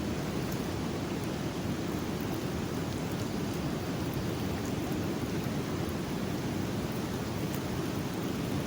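Steady rushing of a river in flood, the water high and flowing very fast.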